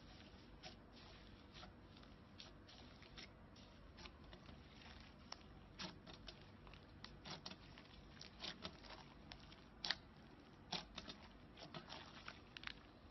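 Slime being squished and stretched by hand: faint, irregular sticky clicks and small pops, busier in the second half, with one louder pop about ten seconds in.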